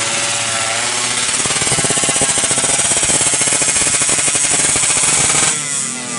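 Yamaha F1ZR 116 cc two-stroke engine with stock exhaust, revved hard and held at high revs with a fast rasping pulse, then the revs fall off about five and a half seconds in.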